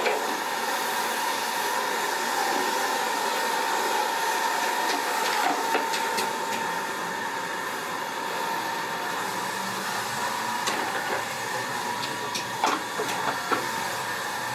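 Steady hissing hum throughout, with scattered sharp clicks and taps from a hand screwdriver fastening screws at the glass edge of a wooden wall clock and from the clock being handled; the taps cluster near the end as the clock is lifted.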